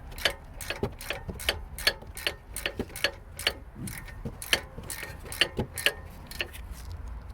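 Socket ratchet clicking steadily, about five clicks a second, as a brake caliper slider bolt is wound in.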